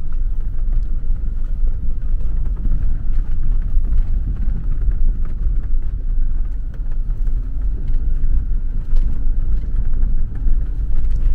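Steady low rumble of road and engine noise heard inside a Subaru car's cabin as it drives over an unpaved dirt-and-gravel road.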